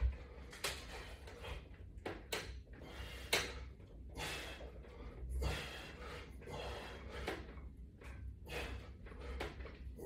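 A person breathing hard in repeated forceful exhales while doing resistance-band pull-downs, with a few sharp knocks of the bar and band attachments.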